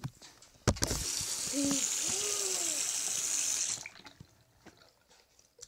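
Bathroom sink tap turned on with a sudden start, water running steadily into the basin for about three seconds, then shut off.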